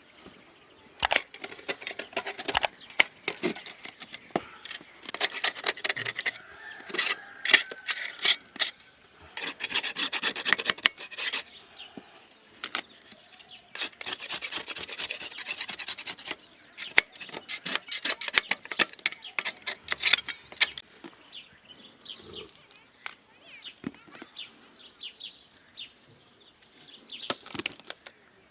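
Hand tools working wood for a beehive frame: bursts of rubbing and rasping strokes mixed with sharp clicks and knocks, separated by short pauses.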